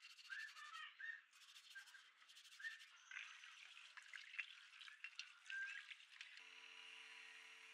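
Stiff plastic brush scrubbing a perforated metal speaker grille in soapy water with quick strokes, then water splashing and dripping as the grille is rinsed. About six seconds in, a steady electric motor hum starts.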